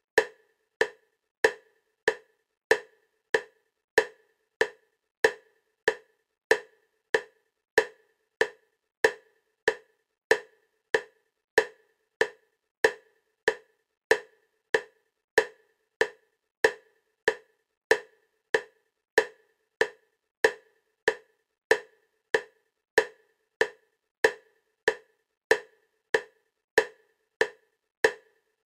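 EMDR bilateral stimulation clicks: short, identical pitched clicks at a steady 96 beats per minute, a little over one and a half a second, alternating between the left and right sides.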